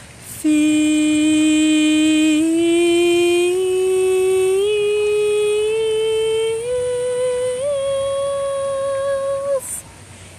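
A woman sings a soprano line unaccompanied, holding one long note on the word "feels" that climbs nearly an octave in small steps, with a slight waver. It cuts off about nine and a half seconds in.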